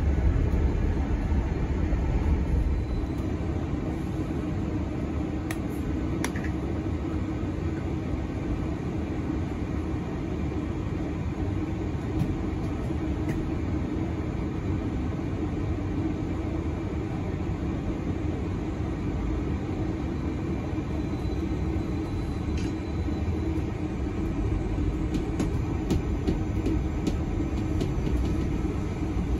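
Steady low rumble of a moving bus's engine and road noise heard from inside the passenger saloon, a little louder in the first couple of seconds, with a few light clicks scattered through it.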